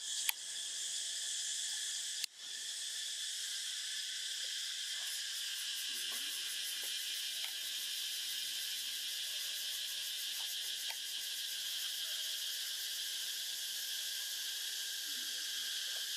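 Steady, shrill chorus of insects, a continuous high buzz in several pitches with a fast pulsing trill in the highest part. It cuts out for a moment about two seconds in.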